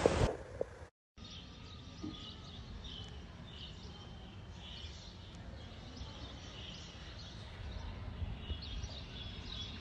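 Small birds chirping faintly and repeatedly over a low steady outdoor background. A brief burst of wind noise on the microphone at the very start cuts off within the first second.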